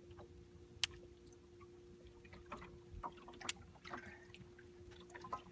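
Faint water lapping and dripping, with scattered small ticks and two sharp clicks about one and three and a half seconds in, over a faint steady hum.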